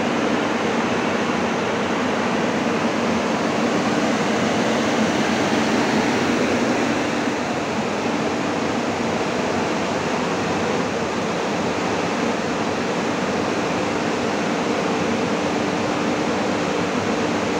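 Large axial fans of a corn dryer running: a steady rush of moving air with a low, even hum underneath.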